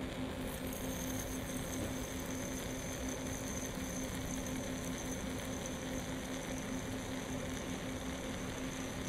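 Steady low electrical-sounding hum over a constant hiss, with no distinct event: background room tone.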